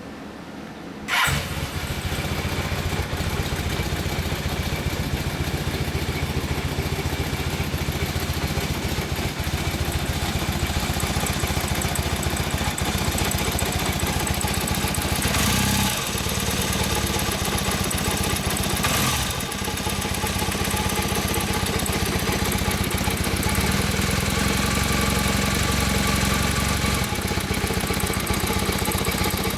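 Honda CM450C's 447 cc parallel-twin engine firing up from fairly cold about a second in with one sharp, strong tick, which the owner puts down to detonation on startup. It then runs steadily at idle, carrying the weird noise from the cylinder head that the owner is complaining of.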